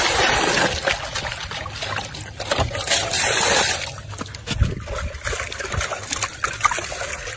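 Water pouring into a metal basin and splashing as hands rub and rinse pieces of raw meat in it. There are two louder rushes of pouring, one at the start and one about three seconds in.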